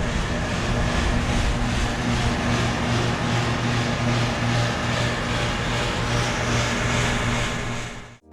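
1991 Payne Tech2000 591AN 2-ton central air conditioner condensing unit running: a steady low hum under an even rushing noise. The sound cuts off abruptly near the end.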